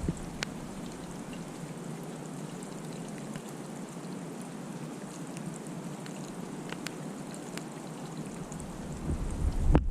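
Snowstorm ambience: a steady hiss with scattered faint ticks, like wet snow and drips falling. Wind rumble on the microphone comes back about nine seconds in.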